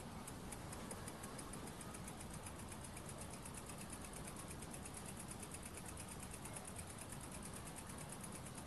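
Tiny brass single-acting beam steam engine running on the heat of a small mosquito-repellent candle, giving a fast, even ticking that picks up speed near the start and then holds steady.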